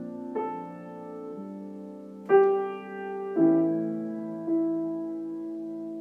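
Slow, soft piano improvisation: four chords struck a second or so apart, each left to ring and fade under the next.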